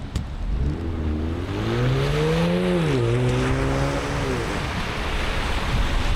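Car engine accelerating, its pitch rising and then dropping sharply about two and a half seconds in before running on level, over the hiss of tyres on a wet road. A sharp click at the very start.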